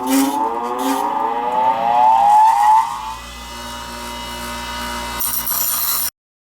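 Electric grinder motor spinning up on a steel knife blank, its whine rising in pitch over about three seconds, then running at steady speed before cutting off abruptly near the end.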